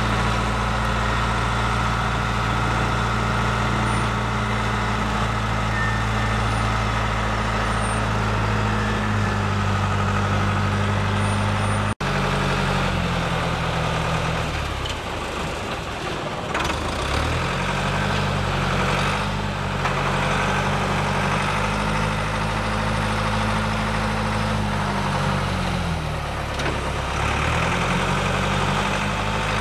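Aircraft tow tractor's engine running steadily under load as it tows a jet, its speed falling away and picking up again twice. There is a brief break a little under halfway through.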